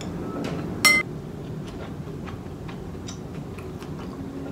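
Metal spoon clinking and scraping against a white ceramic bowl as the last food is scooped up: one sharp, ringing clink about a second in, then faint light taps.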